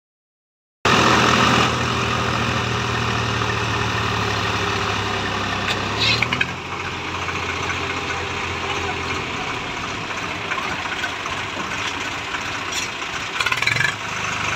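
Swaraj tractor's diesel engine running, steady and even for the first five seconds or so, then rougher and less even. Short louder bursts come about six seconds in and again near the end.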